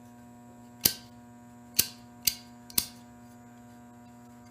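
Flint wheel of a mangled Zippo lighter insert struck four times in sharp clicks; the lighter sparks but fails to ignite despite still smelling of fuel, which the owner takes for a dead lighter.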